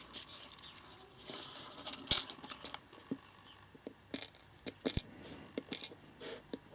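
Surface-mount LEDs being worked out of their plastic carrier tape with a short tearing rustle, then tumbling onto cardboard and being nudged with metal tweezers: a scatter of small sharp clicks and taps, the loudest just after two seconds in.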